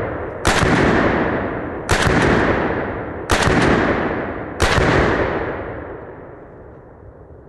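AR-15 rifle firing 5.56 rounds: four single shots about one and a half seconds apart, each followed by a long rolling echo that dies away, the last one fading over about three seconds.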